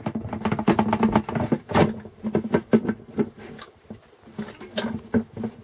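Red plastic cover of a Hilti DD350 core drill being worked loose and lifted off by hand: a dense run of clicks, knocks and rattles, busiest in the first couple of seconds and thinning out afterwards.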